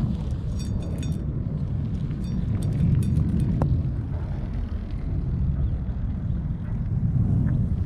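Wind buffeting the microphone as an uneven low rumble, over the small crunches and clinks of a cat eating dry kibble from a stainless steel dish, which come in the first few seconds and then thin out as the cat steps back from the dish.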